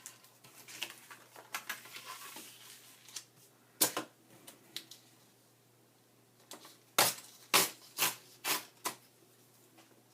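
Paper-craft handling on a tabletop: paper rustling, one sharp tap about four seconds in, then a quick run of about five sharp taps.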